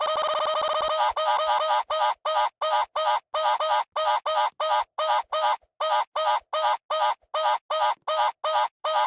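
Chicken sound effect: a rapid run of calls for about the first second, then short identical squawks repeating very evenly, about three a second, like a loop.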